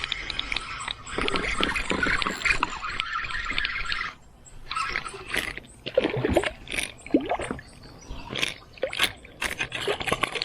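Water splashing and gurgling around a kayak on a creek: a stretch of steady splashing water, then a series of short, irregular splashes.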